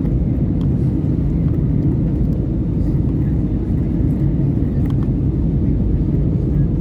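Steady low rumble of a jet airliner's cabin in flight: engine and airflow noise, heard through the cabin window.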